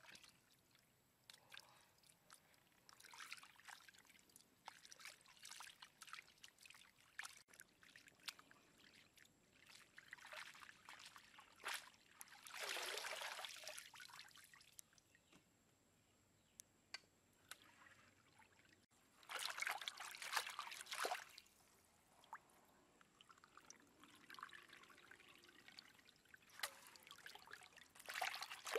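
Water trickling and splashing in short, irregular bursts, faint, with the loudest spells about twelve and twenty seconds in.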